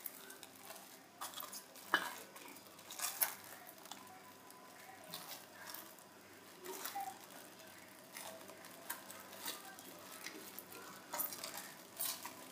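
Plastic cling film crinkling as it is stretched over a steel mixing bowl and pressed down around the rim, in soft, irregular crackles with a few sharper ones.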